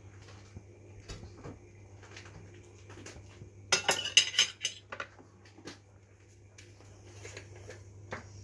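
Metal fork and knife clinking against a metal cooking pot while ham and vegetables in a stew are turned over. Scattered light clinks, with a quick flurry of loud clatters about four seconds in.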